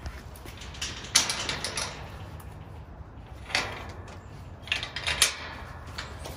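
Metal clanking and rattling of a welded-wire dog-kennel gate as its latch pin is worked, in three short bursts of rattles.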